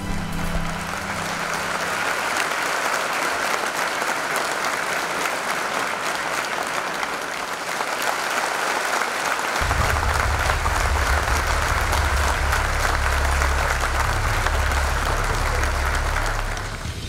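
Crowd applauding steadily in a hall, with a low rumble coming in about ten seconds in.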